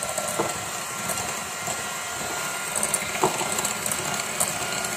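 Electric hand mixer running steadily, its twin wire beaters whisking a thin liquid batter in a glass bowl, with a constant whine and a couple of brief knocks.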